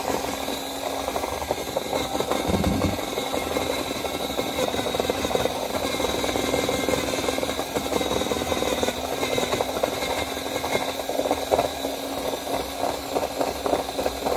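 Electric drill motor running steadily with a rattle and a high whine, cutting off suddenly at the end.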